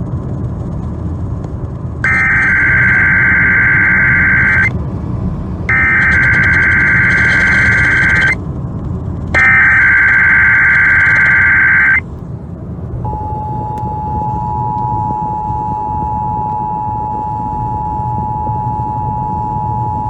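Emergency Alert System test heard over the radio. First come three bursts of SAME digital header tones, each about two and a half seconds long with a second's gap between them, which encode the alert. About a second after the last burst, the steady two-tone EAS attention signal (853 and 960 Hz) begins. A steady low rumble runs underneath.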